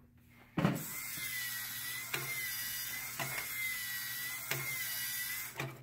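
LEGO Mindstorms EV3 elephant robot walking: its motor and gear train whir steadily with a faint wavering whine, with a knock about once a second. It starts with a knock about half a second in and stops just before the end.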